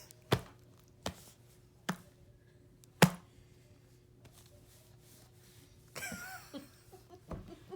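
Four sharp smacks about a second apart, the fourth the loudest, as a capuchin monkey plays roughly. About six seconds in comes a brief, wavering, high-pitched squeak.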